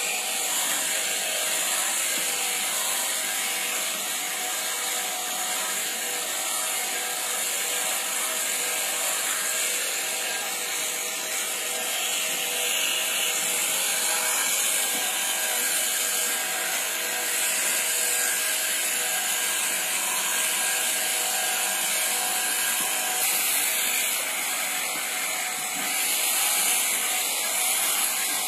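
Electric sheep-shearing clippers running steadily as they cut through a sheep's fleece, a continuous mechanical whirr with a bright hiss.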